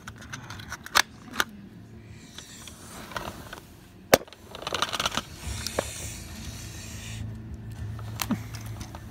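Plastic toy cars and figures being handled on a blanket: a few sharp clacks, the loudest about four seconds in, with scraping and rustling. A low steady hum comes in about halfway through.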